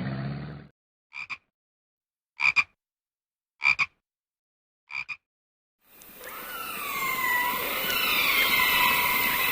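Animal calls: four short double croaks about 1.3 seconds apart, then from about six seconds a run of descending whistles over a steady hiss.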